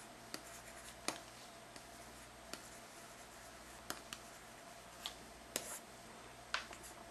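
Stylus pen tapping and sliding on a Lenovo ThinkPad X201 Tablet's screen during handwriting: faint, scattered ticks and taps.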